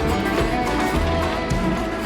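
Background music with guitar and a steady bass line.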